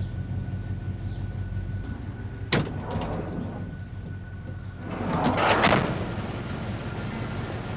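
A van's engine running steadily at idle. There is a sharp click about two and a half seconds in, then the van's sliding side door is pulled and slammed a little after five seconds.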